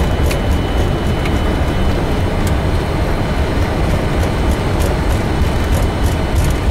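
Boeing 747-400F flight deck during the landing roll: a loud, steady, deep rumble of the jet decelerating down the runway, with faint clicks and a thin high tone above it.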